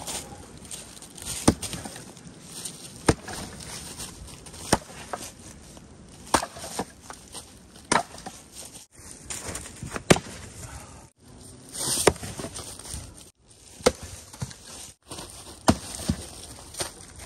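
Fiskars X27 splitting axe chopping hardwood rounds into firewood: about ten sharp strikes, one every one and a half to two seconds.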